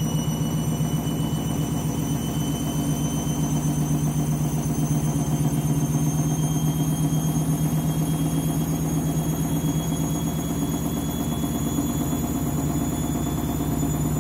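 Candy washing machine ramping up its final spin: a steady low drum hum with a fast flutter, under a thin motor whine that rises slowly in pitch as the drum speeds up.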